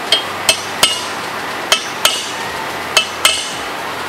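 Claw hammer striking a steel center punch on a stainless steel handrail tube: seven sharp metallic taps, mostly in quick pairs, some with a short ring. The taps punch a dimple at the marked hole so the drill bit won't walk.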